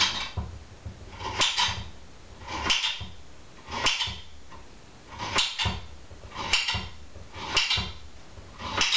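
Kitchen knife slicing thin slivers from a firm vegetable and knocking on the cutting board, one cut about every second or so.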